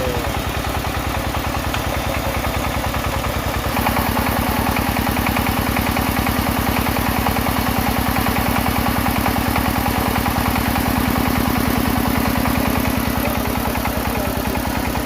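Engine of a soil-test boring rig running steadily with a fast, even pulse. About four seconds in it gets louder and fuller, and it eases back a little near the end.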